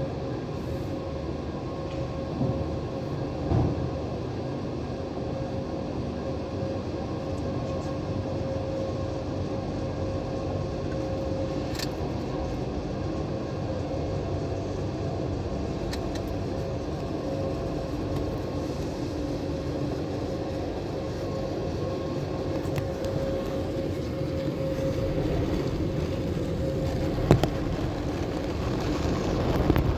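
Automatic car wash heard from inside the car: water spray and wash machinery running steadily over the car, with a constant pitched hum. Two brief knocks, one a few seconds in and one near the end.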